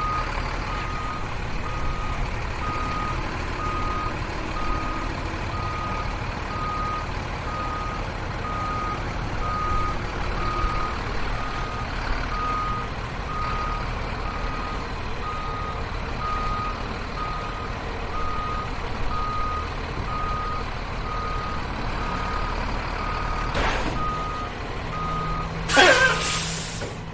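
Vehicle reversing alarm beeping steadily at one pitch, about three beeps every two seconds, over a running engine. Near the end comes a loud burst of hissing air, and the beeping stops.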